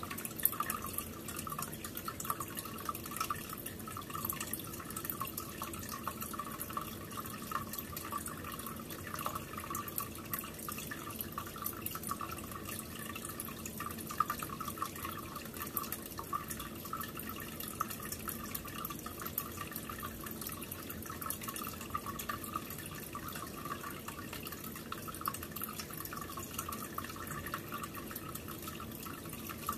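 Steady trickling and bubbling of aquarium water, a constant patter of small drips and pops.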